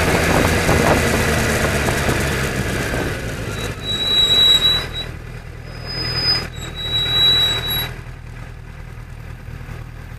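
A car's road and engine noise, heard from inside the cabin, fades as the car slows. About three and a half seconds in come several high-pitched squeals lasting a second or so each, typical of brakes squealing as the car pulls up to a stop. The rest is a low steady idling hum from the stopped traffic.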